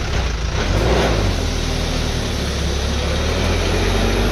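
Loaded six-wheel Tata truck's diesel engine pulling under load as it passes and drives away, a steady low drone that grows louder about a second in, with a faint high whistle slowly rising in pitch.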